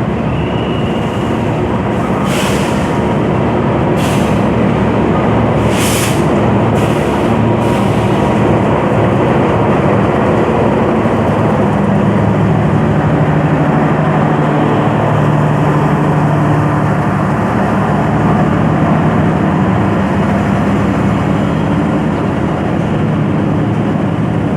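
Cirebon Ekspres diesel-hauled passenger train passing through: a steady heavy rumble of wheels and carriages on the rails, with several short hissing bursts in the first eight seconds or so.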